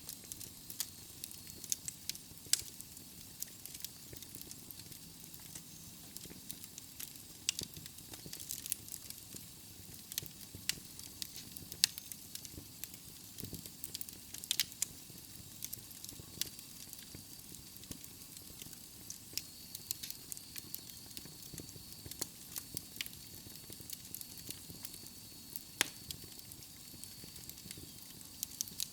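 Wood fire burning in a fireplace: logs crackling and popping at irregular intervals over a soft steady hiss of the flames.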